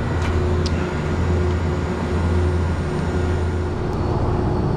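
A steady low machine hum with a faint steady tone above it, and two light clicks just after the start.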